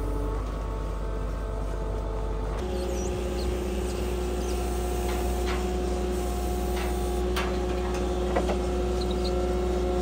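An engine running steadily. Its hum shifts once, suddenly, a little over two seconds in, and a few short knocks of wood or metal follow in the second half.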